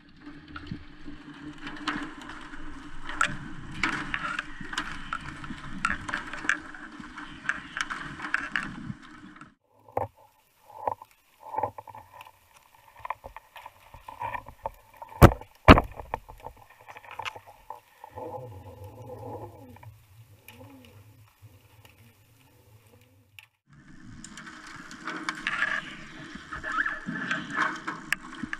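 Underwater sound picked up by a camera housing during a deep freedive: a dense rush of water noise full of small clicks. In the middle comes a quieter stretch of scattered knocks, with two sharp knocks close together about halfway through, as the diver reaches the bottom plate. The rush of water comes back near the end.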